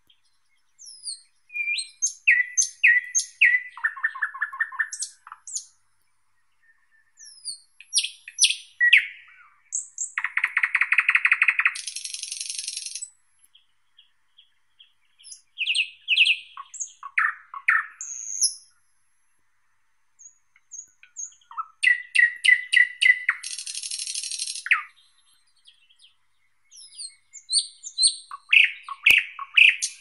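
Thrush nightingale (sprosser) singing: five loud phrases of a few seconds each, separated by short pauses. Each phrase is built of runs of identical notes: sharp whistles and clicks, and fast, dense rattling trills.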